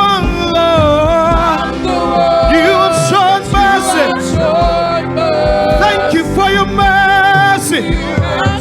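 Live gospel worship singing: several voices holding long, wavering notes together.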